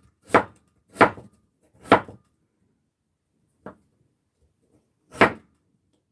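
Kitchen knife slicing Korean radish on a wooden cutting board: three sharp chops in the first two seconds, a faint tap near the middle, and one more chop about five seconds in.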